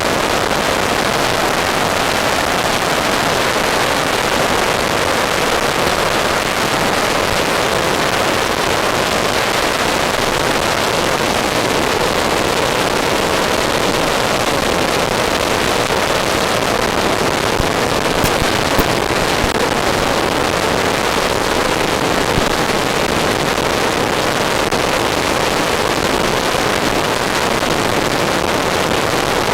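RC F-14 Tomcat model jet in flight, a steady, even rushing noise of its fans and airflow at speed, with a few faint ticks about two-thirds of the way in.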